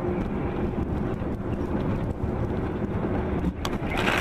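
Steady engine and road rumble from inside a moving car, with a short loud hissing rush near the end.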